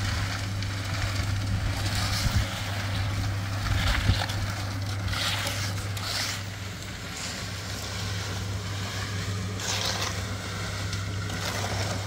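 Concrete mixer's engine running steadily, while a steel trowel scrapes across wet concrete several times.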